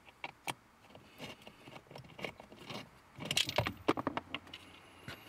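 2011 Chevy Silverado accelerator pedal assembly being worked loose and pulled off its mounting surface, with a string of light plastic clicks and rattles that are busiest about three seconds in.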